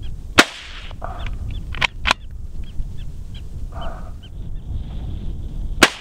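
Two loud rifle shots, one about half a second in and one near the end, each trailing off in a short echo, with two fainter sharp cracks around two seconds in. Wind buffets the microphone throughout, and short high chirps repeat a few times a second.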